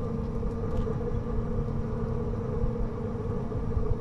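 Pellet smoker running, its fan giving a steady hum over a low rumble.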